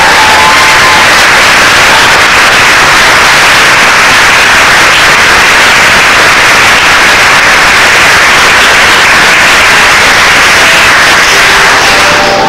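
Loud, steady audience applause, a dense even clatter of many hands clapping.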